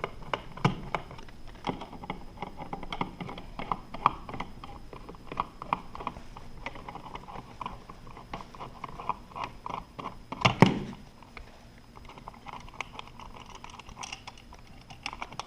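Hand work on a wall switch being removed from its box: a run of small, irregular clicks and scrapes from the screwdriver, screws and switch, with one louder knock about ten and a half seconds in.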